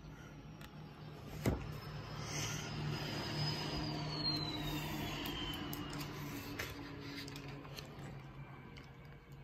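Low hum of a passing motor vehicle that swells and then fades over several seconds, with a faint whine falling in pitch partway through. A single sharp click comes about a second and a half in.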